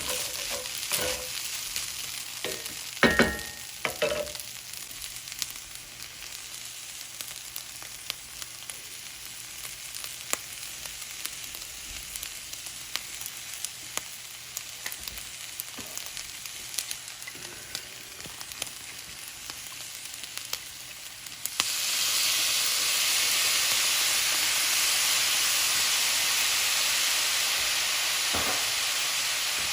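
Fried rice sizzling and crackling in a hot pan as it is stirred, with a few metal clanks about three seconds in. About two-thirds of the way through, the sizzle suddenly grows into a loud, steady hiss.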